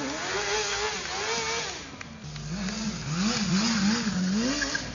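Sport motorcycle engine revving hard during stunt riding: one long rev climbing and falling in the first two seconds, then a quick run of about four rev blips up and down.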